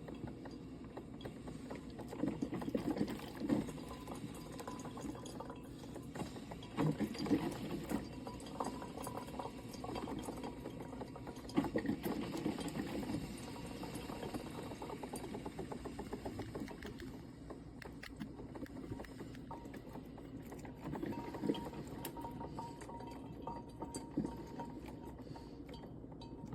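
GE drip coffee maker brewing: water moving and bubbling through the machine under a steady low hum, with irregular louder spells every few seconds.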